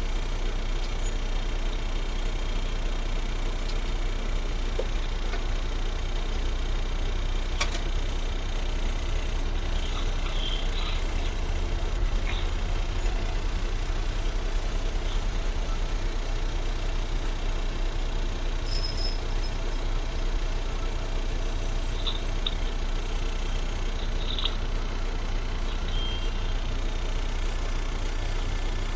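Truck's diesel engine running steadily, an even low hum.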